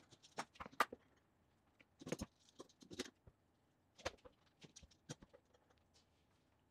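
Metal bar clamps clicking and knocking as they are set on a glued-up wooden blank and tightened by hand: several short clusters of sharp clicks.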